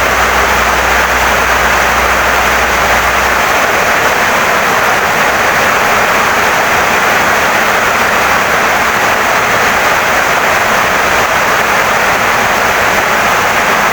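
Heavy rain pouring steadily onto a wooden house, a dense, even hiss with no let-up.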